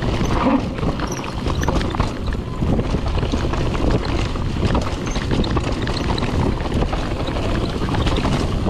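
Mountain bike descending a dirt trail: a steady rush of tyres and wind on the microphone, with constant clattering and rattling from the bike over the rough ground.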